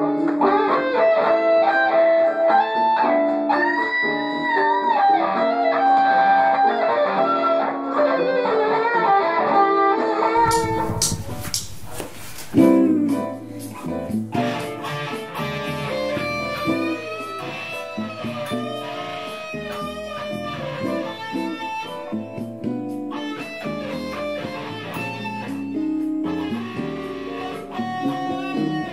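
Electric guitar played through an amp over a backing track. About ten seconds in, a rushing noise breaks in, ending in a sharp loud click, and then the playing carries on with a fuller, bass-heavier sound.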